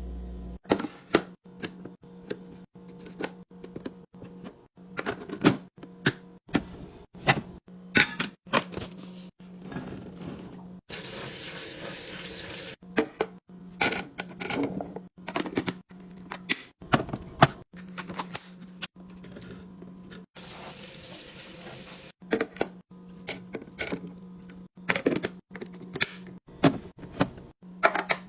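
Food items and containers being handled and set down while a refrigerator is restocked: an irregular string of clicks and knocks. There are two stretches of hissing noise, about 11 and 20 seconds in, over a steady low hum.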